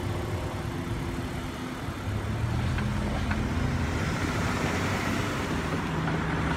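Road traffic: cars driving over the railroad crossing. It gets louder from about two seconds in as cars pass close by.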